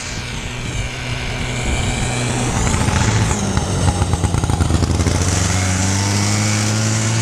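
Snowmobile engine running as the machine drives up close, growing louder over the first few seconds, then running steadily.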